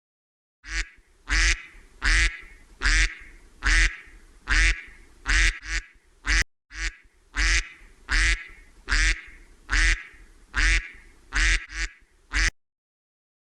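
Duck quacking in a steady series of about sixteen quacks, roughly one every three-quarters of a second, with a short break about six and a half seconds in.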